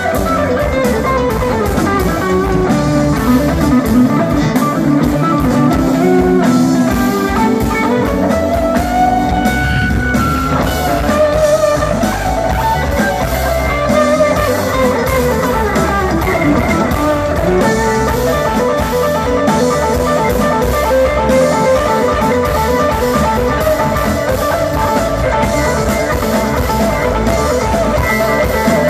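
A live rock band playing, led by an electric guitar lead with long sliding, bending notes.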